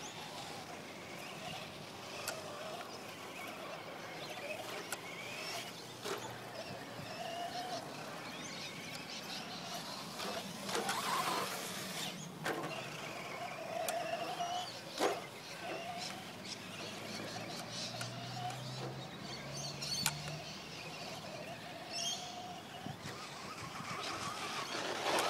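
Electric motor of a Traxxas Slash RC short-course truck whining as it laps a dirt track, the pitch rising and falling with the throttle, with occasional sharp knocks. It swells louder around eleven seconds in and again at the end.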